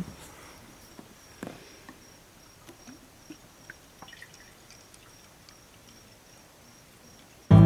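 Quiet ambience with an insect chirping in an even, high pulsing tone, and a few faint knocks and clicks, the clearest about a second and a half in. Acoustic guitar music starts at the very end.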